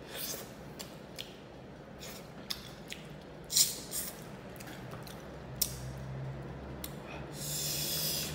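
Close-up mukbang eating sounds of fried fish eaten by hand: wet chewing, lip smacks and finger sucking, with irregular sharp clicks, the loudest about three and a half seconds in. Near the end comes a breathy rush of air through pursed lips lasting about a second.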